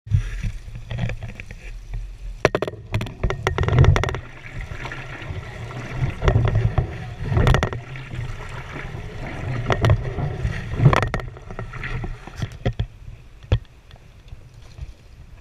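Onboard sound of a coxed four rowing shell under way: wind buffeting the boat-mounted camera's microphone and water rushing and splashing along the hull, swelling every second or two, with repeated sharp knocks from the boat.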